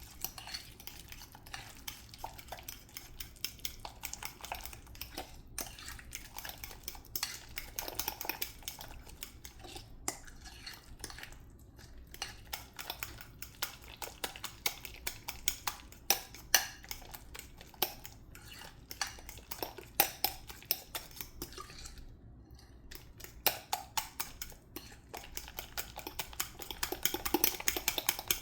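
A utensil stirring or whisking pancake batter in a mixing bowl, with a rapid run of clicks and scrapes against the bowl that stops briefly a few times.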